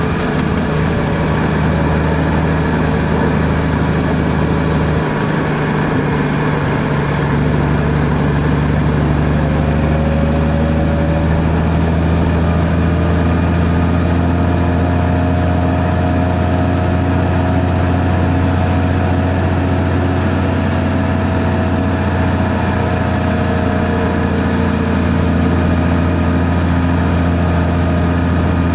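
Steady engine and road noise of a vehicle driving, with a low hum and engine tones that drift slightly in pitch.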